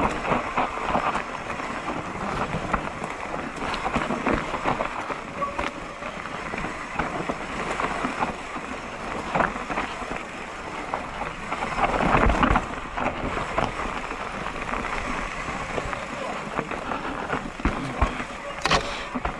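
Mountain bike riding down a rocky dirt singletrack: tyres rolling over loose dirt and stones, with the bike rattling and knocking over bumps, loudest about twelve seconds in.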